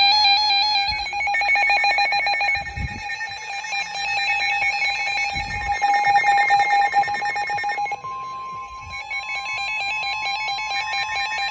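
Several NOAA weather radio receivers sounding their electronic alert at once: layered, rapidly pulsing beeps. About eight seconds in, the pulsing gives way to a steady single-pitch warning alarm tone of about 1050 Hz.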